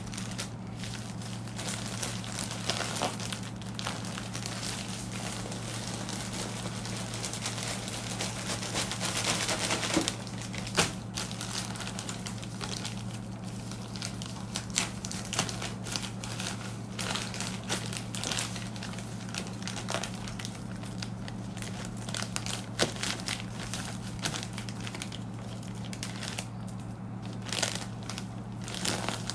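Plastic courier mailer bag crinkling and rustling as a garment is pushed inside and the bag is handled and pressed flat, with scattered sharp crackles, under a steady low hum.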